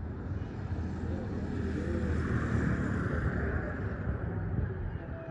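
A motor vehicle driving past, its engine and tyre noise rising to a peak partway through and then fading away.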